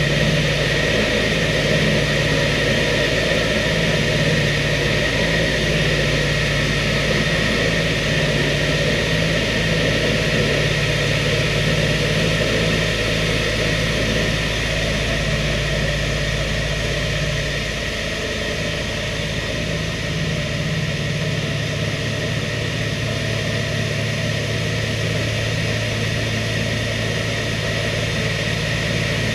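Steady drone of the B-25 Mitchell's twin Wright R-2600 radial engines and propellers in cruise, heard inside the cabin. About two-thirds of the way in, the drone's pitch settles a little lower.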